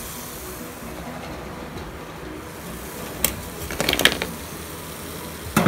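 Wire-mesh skimmer clinking against a stainless steel plate as fried masala vadai are tipped off it, over a faint steady hiss. There is a single click about three seconds in, a quick rattle of clicks around four seconds, and another couple of clicks near the end.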